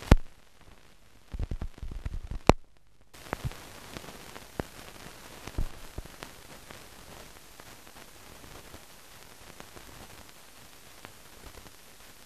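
Hiss and crackle of a silent colour film transfer with no soundtrack. A sharp click, a run of low thumps, a second click and a brief dropout in the first three seconds mark a splice in the film; after that, steady hiss with scattered small crackles.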